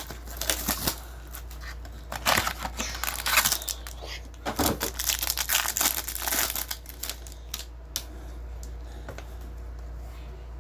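A baseball card pack's wrapper being torn open and crinkled, in stretches of crackling over the first seven seconds, then only a few faint clicks as the cards come out.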